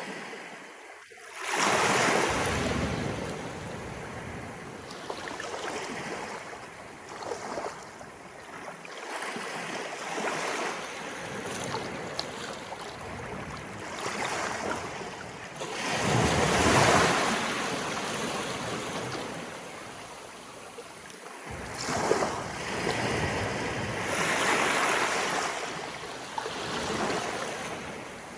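Sea waves rolling in and breaking on the shore as the tide comes in, in swells that rise and fall every few seconds, with splashes and water washing back. Some wind on the microphone.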